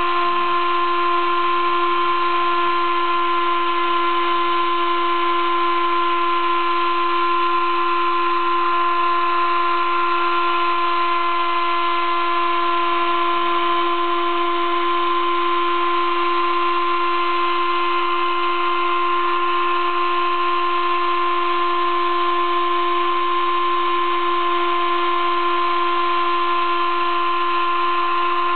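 Sable-2015 desktop CNC mill engraving 15 mm acrylic sheet with a 20-degree V engraving cutter: the spindle and cutting give a steady high-pitched whine over a hiss. A fainter tone comes and goes several times as the machine works.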